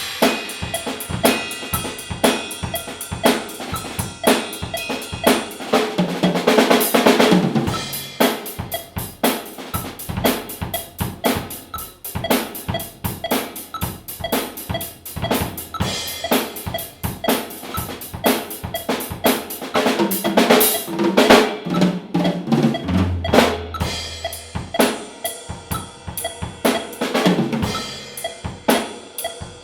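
Drum kit played solo: fast snare strokes, rolls and rimshots over bass drum kicks, with cymbals ringing. Fills move down to the toms twice, about six seconds in and again in the last third.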